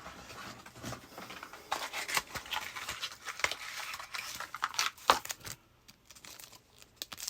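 Crinkly packaging being handled and torn open: rapid crackling and rustling with short tearing sounds, dying down about two-thirds of the way through.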